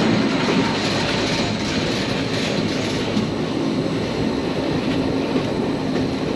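Rigi rack railway train climbing a steep grade, heard from inside the car: a steady running rumble and hiss from the wheels and drive.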